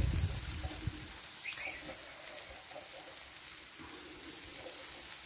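Dosa frying in oil on a hot griddle: a faint, steady sizzle, with a few soft low knocks in the first second.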